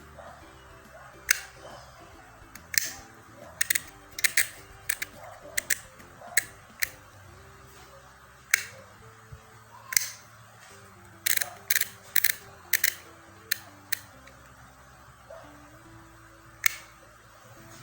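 Handheld manual embossing label maker clicking sharply at irregular intervals, some clicks in quick pairs, as its wheel is turned to each letter and its lever is pressed to emboss the plastic tape. Soft background music plays underneath.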